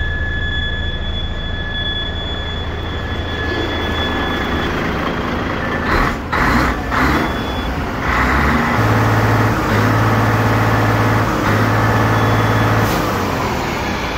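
DAF XF 95.430 tractor unit's six-cylinder diesel idling, with a thin steady whine over it for the first few seconds. A few short louder noises come about six seconds in, and from about eight seconds the engine is louder and harsher.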